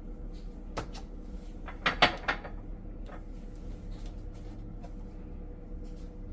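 A plastic measuring cup and sugar container being handled while sugar is poured: a single knock just under a second in, a louder cluster of clatters about two seconds in, then a few light ticks.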